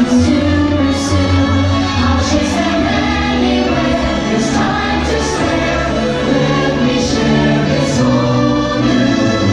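Fireworks show soundtrack: a choir singing over orchestral music.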